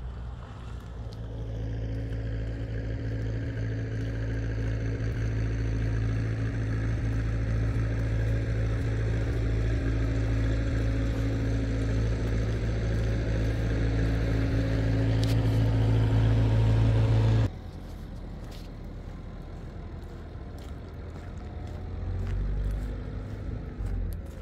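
A motor vehicle engine running at a steady pitch, growing gradually louder, then cut off abruptly about two-thirds of the way through. After it, quieter outdoor sound with light scattered clicks, fitting footsteps on gravel.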